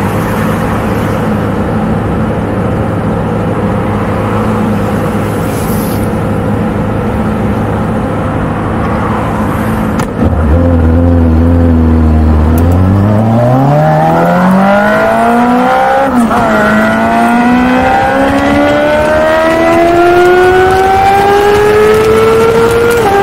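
Sport motorcycle engine idling steadily, then pulling away about ten seconds in and accelerating hard, its pitch climbing through the gears with upshifts about two thirds of the way through and again at the end.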